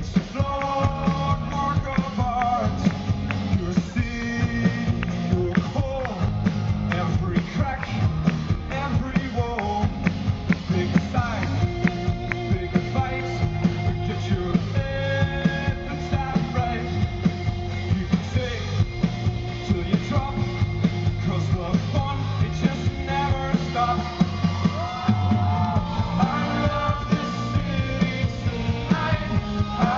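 Rock band playing live with a steady drum beat, guitars and singing at times, recorded from the audience.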